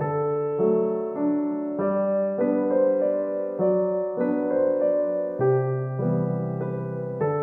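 Background piano music: a gentle melody over sustained chords, the notes changing about every half second.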